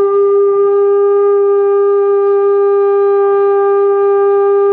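Bansuri (bamboo flute) holding one long, steady note with a clear tone and only a faint trace of breath noise, blown with the air directed straight down into the hole at about 90 degrees, the angle that avoids hissing.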